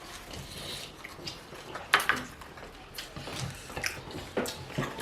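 A few faint clicks and taps of tableware on a dish, with soft eating noises between them.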